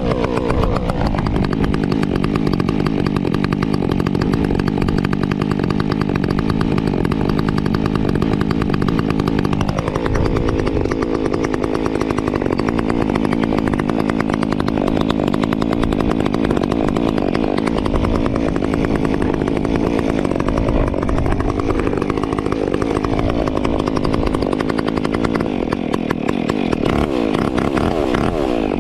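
Stihl MS 362 C-M two-stroke chainsaw with an Egan Straight Shot performance muffler running loud. It revs up to a steady high speed about a second in and holds it for around nine seconds, then drops to a lower speed that wavers up and down.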